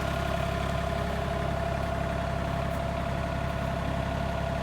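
An engine running steadily at idle, holding a constant note.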